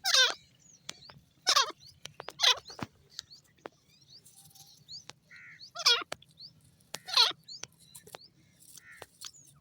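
Grey francolin (teetar) giving five loud, harsh calls, each under half a second and sliding down in pitch, with faint small-bird chirps between them.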